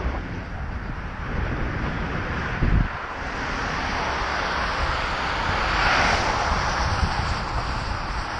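Wind buffeting a helmet-mounted action camera's microphone on a moving bicycle: a steady low rumble. There is a brief thump about three seconds in, and a hiss that swells and fades around the middle.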